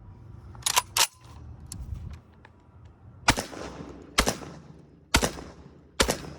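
Semi-automatic 12-gauge shotgun fired four times in steady succession, about a second apart, each shot followed by a short echo. Two sharp clicks come about a second in, before the shooting starts.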